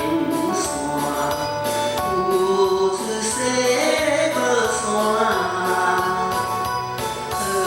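Singing over a backing track with a steady beat, played through a classroom sound system.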